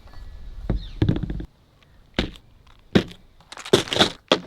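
A series of separate clicks and knocks of an air rifle being handled and loaded, with a louder clatter of several knocks near the end.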